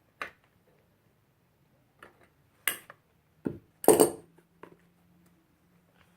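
Repair tools clacking and tapping against a work board: a handful of separate sharp knocks spread over several seconds, the loudest about four seconds in.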